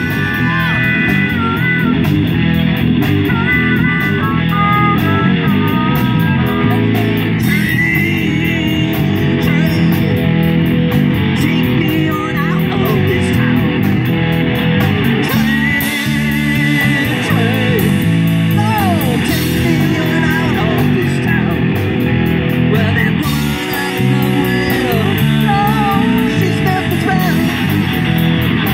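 Live amateur rock band playing an instrumental passage: electric guitars, bass guitar and drums with a steady beat, and a harmonica played into the vocal microphone over the first several seconds, its notes bending and wavering.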